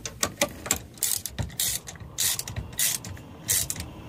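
Small hand ratchet with a Torx socket clicking in a series of short bursts while fine-thread Torx machine screws are snugged up.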